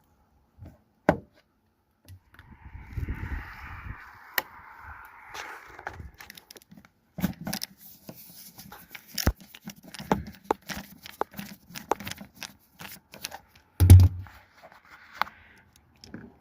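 Hand work on a semi truck's inner door panel as it is pried and pulled off: a noisy rasp lasting a few seconds, then a long run of sharp clicks and knocks, with one heavy thump about 14 seconds in.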